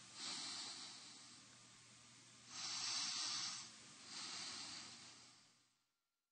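Faint hissing, rushing noise that swells and fades three times, then stops shortly before the end.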